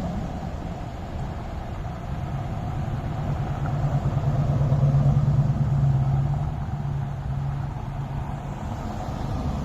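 Road traffic: a motor vehicle's engine hum builds, peaks about halfway through and fades again, over a steady low traffic rumble.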